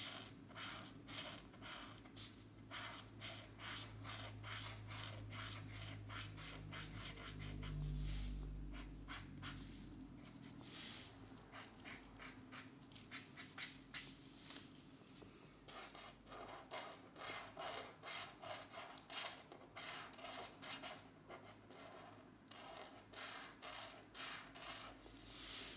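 Felt-tip markers being stroked back and forth across coloring-book paper, a steady run of short scratchy strokes a few times a second. A brief low rumble about eight seconds in.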